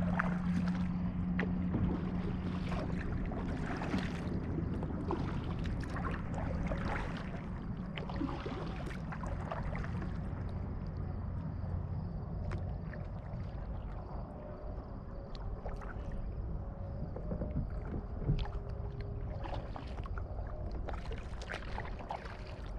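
Water lapping and splashing against the bow of a kayak right at the waterline, a constant irregular trickle of small splashes. A steady low hum sits underneath and fades during the first half.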